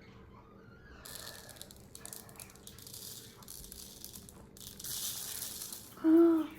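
Plastic crinkling and rustling as cookie-decorating supplies are handled, louder about five seconds in. Near the end, a short hummed vocal sound.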